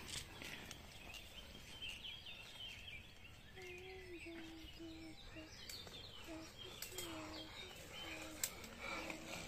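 Woodland birds chirping, joined from about a third of the way in by a run of short low calls repeated about twice a second. A few light clicks and one sharp knock near the end come from mountain bikes passing on the dirt trail.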